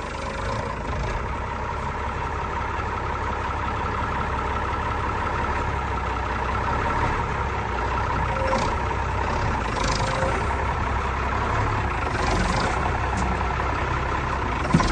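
Old Mack R-series truck's diesel engine idling steadily.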